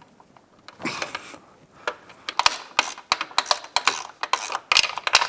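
Hand socket ratchet clicking in quick, uneven runs as the upper shock mount bolt on a Suzuki GSX-R 1000 is spun loose.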